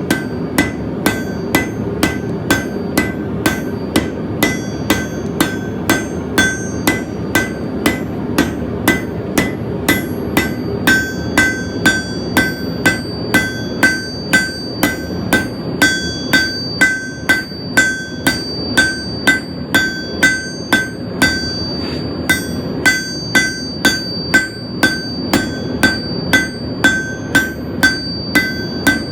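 A hammer beating a steel fencing nail on an anvil at about two blows a second, each blow ringing. The smith is drawing the nail out thin, and there is a brief pause about three-quarters of the way through. A steady rushing noise runs underneath.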